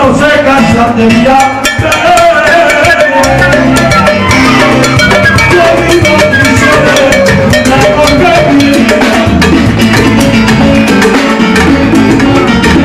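Live band playing loud Latin-style dance music, with a drum kit and percussion beating out a steady fast rhythm.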